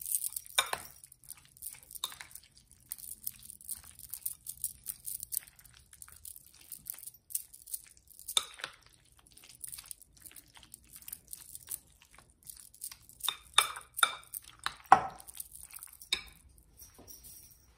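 A metal fork stirring potato salad in a glass mixing bowl: repeated scrapes and clinks of the fork against the glass, with louder knocks about eight seconds in and a cluster of them near the end.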